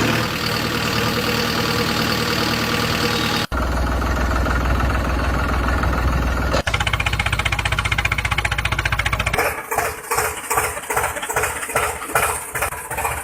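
Vehicle engine running, in three spliced stretches with abrupt changes about three and a half and six and a half seconds in. The last few seconds pulse unevenly, about two to three beats a second.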